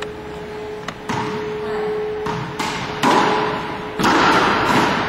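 Racquetball rally: the ball cracks off racquets, walls and floor about five times, each hit sharp and echoing in the enclosed court.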